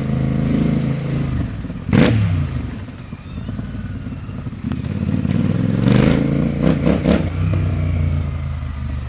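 Royal Enfield Continental GT 650's parallel-twin engine running with its silencers removed, revving and backfiring. One loud bang about two seconds in as the revs fall, then the revs climb again and a quick string of crackles and pops comes around six to seven seconds in.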